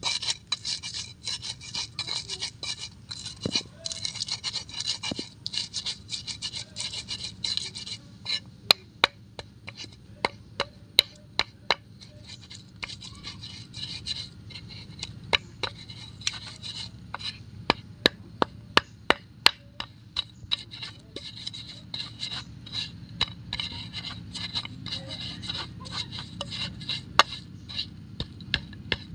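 Stone pestle grinding chillies and palm sugar in an unglazed earthenware mortar (Indonesian cobek and ulekan): rapid scraping and rubbing strokes of stone on clay. Through the middle stretch, sharp knocks of the pestle striking the mortar stand out.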